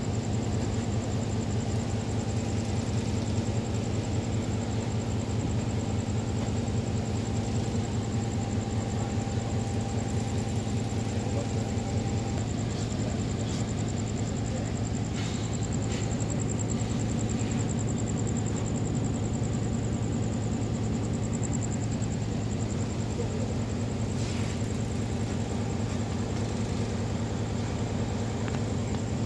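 Diesel train engines running at a station stop: a steady low drone with a faint, steady high whine above it.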